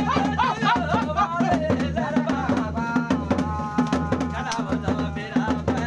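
Folk music with a steady drum beat and a singing voice.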